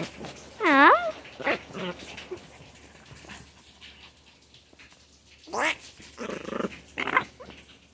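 Small dogs playing: a drawn-out whine about a second in, then after a quieter stretch, short yips and a low growl near the end.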